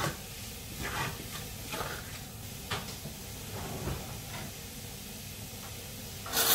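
Spoon stirring and scraping mashed potato filling in a stainless steel frying pan, a handful of short strokes about a second apart over the first four seconds, over a low sizzle from the hot pan. A single sharp knock near the end.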